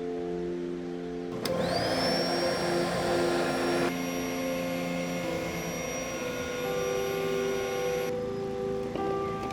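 A small motor starts whirring with a whine that quickly rises in pitch, about a second and a half in. It runs steadily for several seconds and stops abruptly near the end, over background music.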